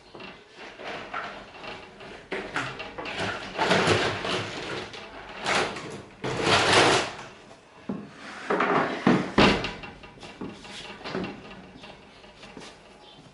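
Manual roller shutter being lowered, its slats clattering and rattling down in uneven bursts, with one sharp knock about nine seconds in.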